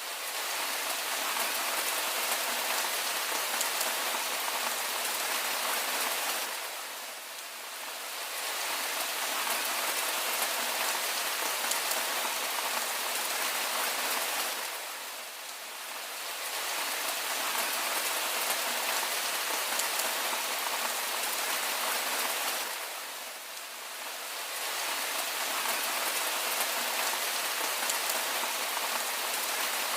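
Steady rainfall, a dense even hiss of many drops, easing briefly about every eight seconds and then building back up.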